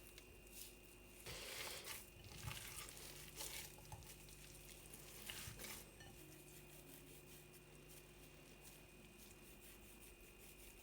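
Near-silent room tone with a few faint, short handling noises in the first half, and a low steady hum that comes in about three seconds in and stops about nine seconds in.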